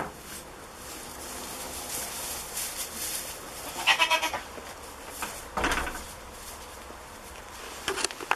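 A goat bleats once, a short wavering call about four seconds in. Scattered rustling and light knocks come from goats moving about on straw bedding.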